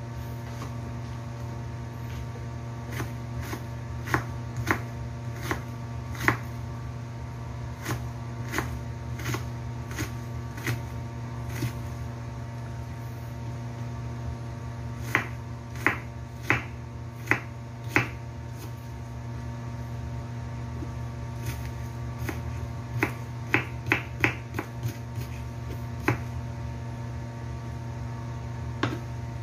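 Kitchen knife slicing a red onion on a wooden cutting board: sharp, irregular taps of the blade striking the board, in quicker runs about halfway through and again near the end. A steady low hum runs underneath.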